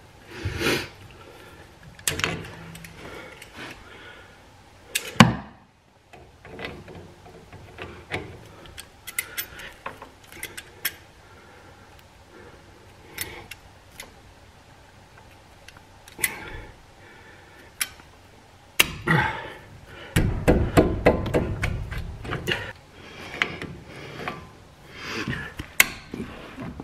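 Locking pliers clamped on a corroded, partly rounded-off brake caliper bolt, clicking, clanking and scraping as they are worked against the bolt that won't break free. Scattered metallic clicks and knocks, one sharp crack about five seconds in, and a burst of clattering and scraping around twenty seconds.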